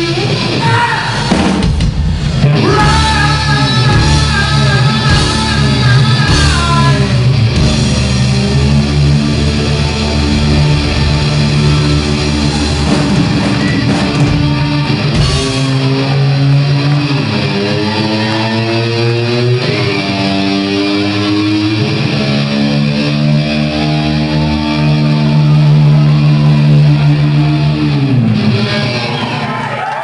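Live rock band playing loudly: distorted electric guitar holding long notes that bend up and down, over bass guitar and a drum kit with cymbals.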